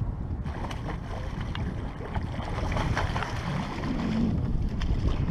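Water splashing as a hooked brown trout thrashes at the surface and is scooped into a landing net, a busy run of short splashes.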